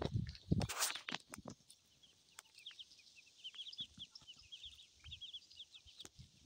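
Ducklings peeping: many short, high chirps, each falling in pitch, coming thick and fast. A brief rustle in grass and dry leaves about a second in.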